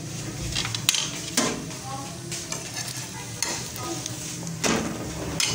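Besan cheela frying with a steady sizzle on a flat nonstick tawa, while a spatula scrapes against the pan several times as it is lifted and turned.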